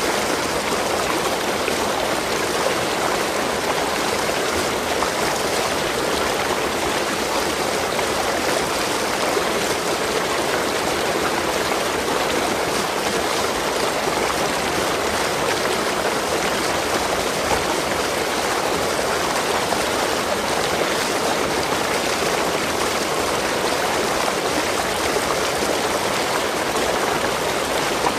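Water of a stream flowing steadily, an even, unbroken sound of running water.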